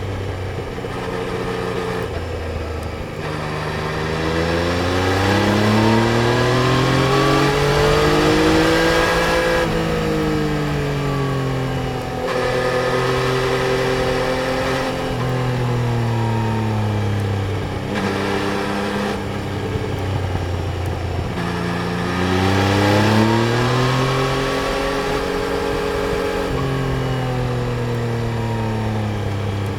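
Yamaha Tracer 900 GT's three-cylinder engine under way: it revs up about 3 s in, shifts with short dips in pitch around 10 and 12 s, winds down through the middle, then accelerates hard again a little past 20 s and holds a steady pitch near the end.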